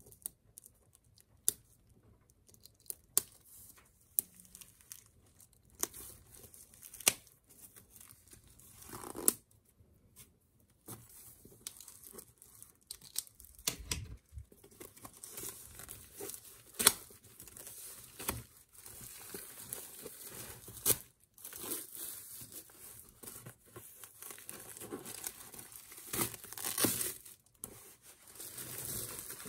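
Clear plastic shrink wrap being slit, torn and peeled off a padded fabric case. Scattered sharp snaps and clicks in the first several seconds, then almost continuous crinkling of the plastic.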